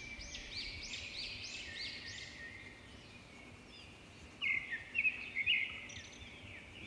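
A bird chirping: a quick run of repeated chirps in the first couple of seconds, then a few louder, sharper chirps a little past the middle.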